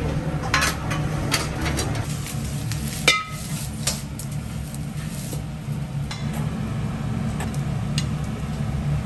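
Ramen kitchen work: scattered clinks and knocks of bowls, utensils and pots over a steady low hum, with one ringing metallic clank about three seconds in.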